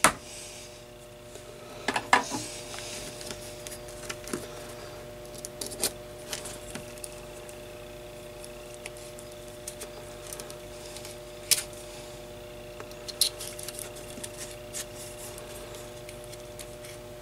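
Scattered small clicks and taps as the metal pins and phenolic end cap of a transmitting tube's base are handled, over a steady low hum.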